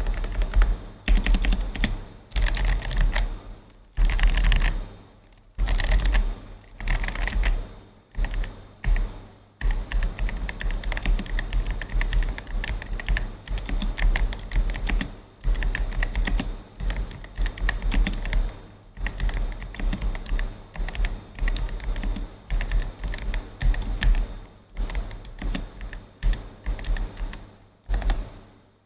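Ajazz AK820 V2 mechanical keyboard with red linear switches being typed on. Quick bursts of keystrokes with short pauses give way to steady, continuous typing after about ten seconds.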